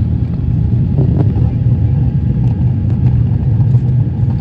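Steady low rumble of engine and airflow noise heard inside the cabin of an Airbus A350-900 airliner, with a faint steady whine above it.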